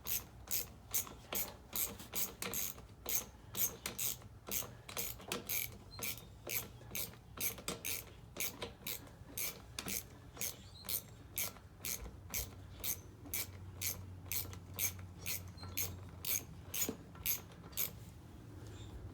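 Socket ratchet clicking in a steady rhythm of about two clicks a second as a bolt holding a lawnmower's plastic carburetor is backed out. The clicking stops near the end.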